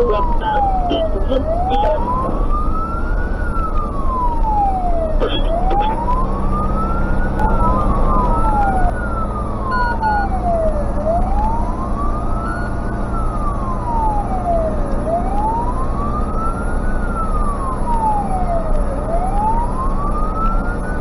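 Fire truck siren wailing, rising and falling slowly about every four seconds, heard from inside a Tatra 148's cab over the steady drone of its air-cooled V8 diesel. A second rising wail overlaps briefly about seven seconds in.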